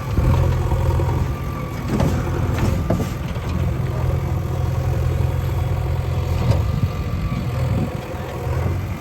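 Diesel engine of a JCB 3DX backhoe loader running steadily at an even pitch while it works, with a few short knocks about two to three seconds in and again past the middle.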